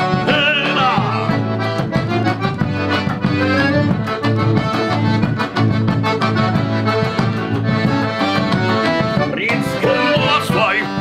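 Gaúcho dance music: a band playing an instrumental passage led by accordion, over a steady dance beat.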